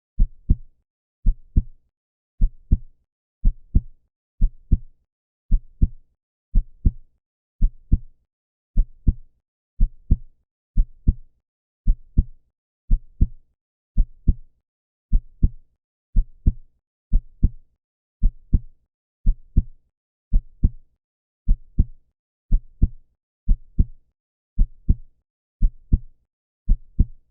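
Heartbeat: a steady lub-dub, two low thumps close together, repeating about once a second.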